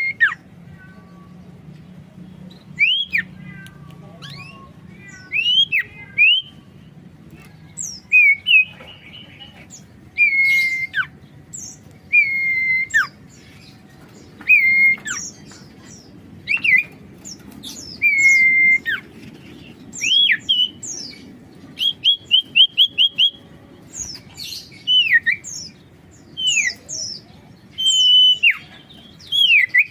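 Common iora (sirtu or cipoh) singing: clear whistled notes held near one pitch, each ending in a sharp downward slide, repeated every second or two. Quick rapid runs of short notes come about 22 seconds in and again near the end, with higher thin chirps between the phrases.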